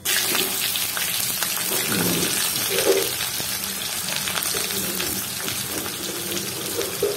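Cumin seeds and sliced onion sizzling in hot oil in a kadhai, a tadka being fried. The steady crackling frying hiss starts suddenly and holds throughout.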